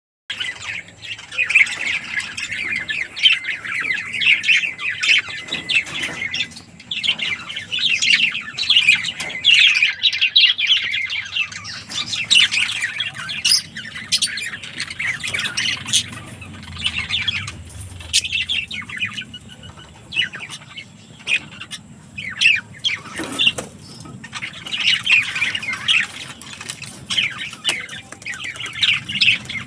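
Several budgerigars chattering: a dense, continuous run of short chirps and warbles that thins out for a few seconds past the middle.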